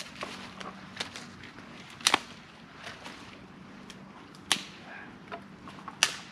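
Irregular sharp clicks and taps. The loudest are a quick double about two seconds in and single ones about four and a half and six seconds in. Under them runs a faint steady low hum.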